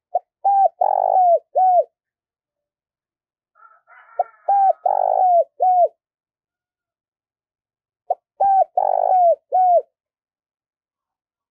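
Spotted dove cooing: three phrases about four seconds apart, each a short, short, long, short run of coos.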